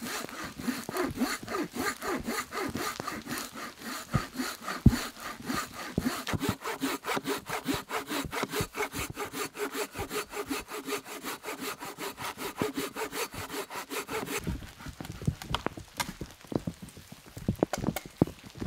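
Folding hand saw cutting through a fallen log in quick, steady back-and-forth strokes. The sawing stops about fourteen seconds in, and scattered knocks and snaps follow.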